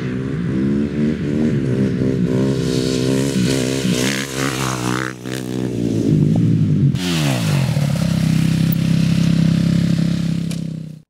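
KTM 250 SX-F single-cylinder four-stroke motocross engine revving up and down. About seven seconds in the revs fall away sharply, and the engine runs steadily until the sound cuts off suddenly.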